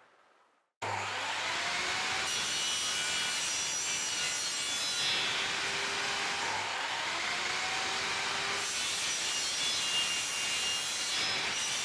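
Table saw ripping thin strips of wood, the blade cutting steadily under load. The sound starts abruptly about a second in and stays at an even level.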